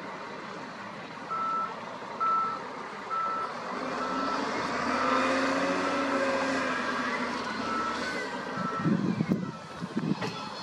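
Wheel loader's reversing alarm beeping about once a second over its diesel engine, which revs up and eases off in the middle as it backs up. A few heavy knocks come near the end.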